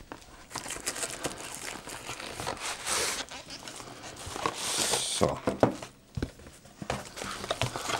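Cardboard box and plastic wrapping rustling and crinkling as a power strip is slid out of its box and unwrapped, with a few light knocks of the box on the desk.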